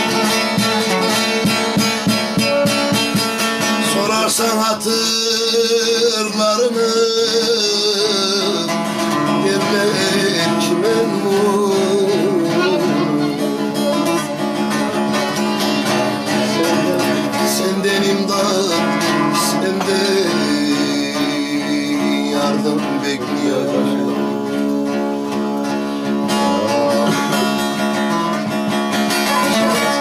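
Bağlama (long-necked Turkish saz) played fast with a plectrum, strummed and picked continuously in a Turkish folk tune, with a man's voice singing over it from about five seconds in.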